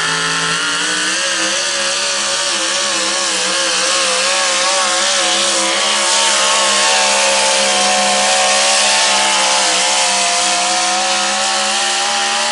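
A modified 4x4 pulling truck's engine running flat out at high revs under full load as it drags the weight sled. It is loud and steady, its pitch wavering in the first few seconds and then climbing slightly near the end.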